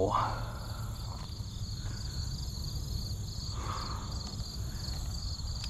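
Insects chirping in an even, repeating pulse, over a steady low rumble.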